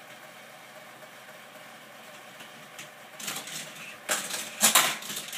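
Toy cars rattling and clattering down a plastic toy track, starting about three seconds in after a faint steady hum, with the loudest clatters near the end.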